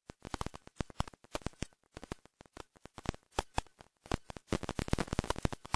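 Irregular crackling clicks, many a second, with no speech over them.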